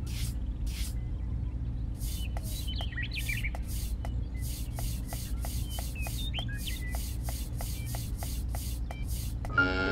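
Small hand trowel scraping and shovelling sand in and around a plastic tray, in repeated short strokes about two to three a second. There are faint chirps under it, and a cat's meow begins right at the end.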